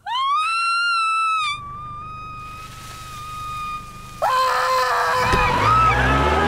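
A woman's high scream, rising in pitch as it starts and held for about a second and a half, then trailing on as a thinner held note. About four seconds in, a man's lower scream breaks in with a loud clamour of many wavering pitches, and a deep rumble comes in near the end.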